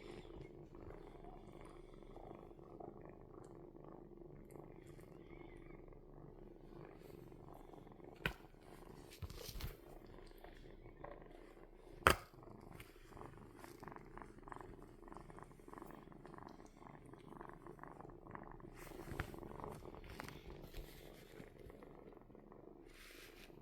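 Kitten purring steadily. There are two sharp knocks, a small one about a third of the way through and a louder one about halfway.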